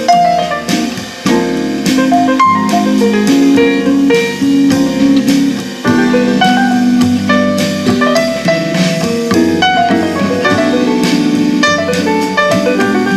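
A bossa nova-style jazz instrumental with a steady drum beat, played back through a pair of Fostex FE108 Super full-range speakers. The speakers' edges have been softened after hardening.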